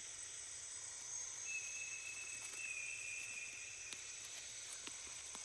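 Tropical jungle ambience: steady high-pitched insect trilling, with a thin, held whistling note from about one and a half to three and a half seconds in and a few faint ticks.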